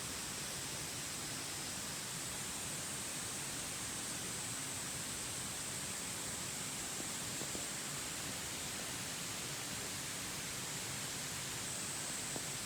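Steady outdoor ambient hiss with a constant high-pitched drone, typical of a distant summer insect chorus, and a couple of faint ticks.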